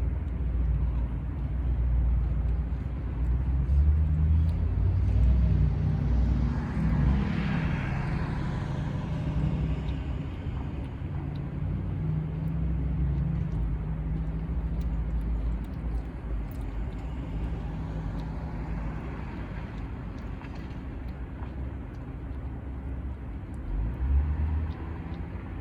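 Steady low rumble of road traffic, with a vehicle passing by about six to ten seconds in.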